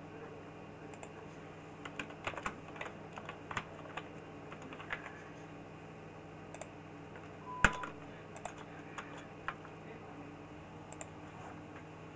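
Computer keyboard being typed: a quick run of keystrokes spelling out a short word about two seconds in. Scattered single clicks follow, the loudest a little past the middle.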